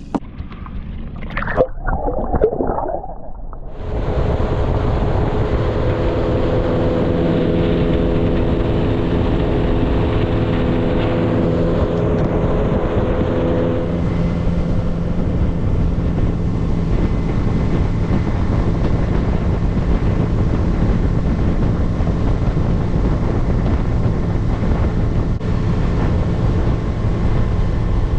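Boat's outboard motor with a steady engine note, running at speed from about four seconds in, with wind noise on the microphone.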